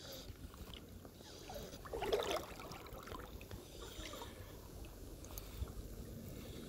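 Faint, steady water sound of a creek, with a short louder sound about two seconds in.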